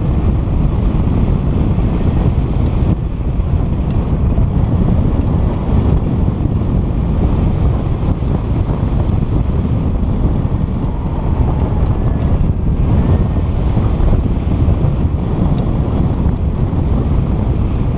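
Wind buffeting the microphone: a loud, steady low rumbling noise.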